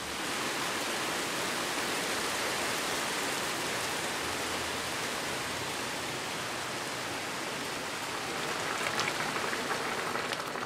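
Steady rain falling, the drops pattering on wet paving stones and leaves. A few sharper crackles come in near the end.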